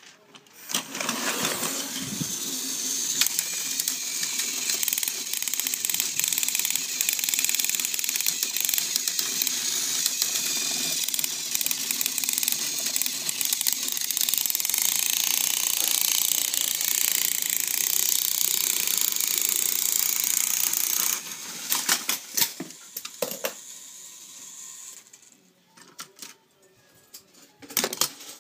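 Battery-powered plastic toy train engines whirring steadily, their small electric motors and gears running on plastic track for about twenty seconds before cutting off suddenly. A few clicks and knocks from the toys being handled follow.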